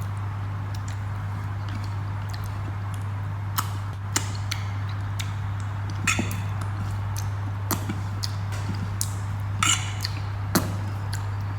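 Eating noises over a steady low hum: a dozen or so scattered short clicks and clinks from the meal, loudest about six seconds in and again near the end.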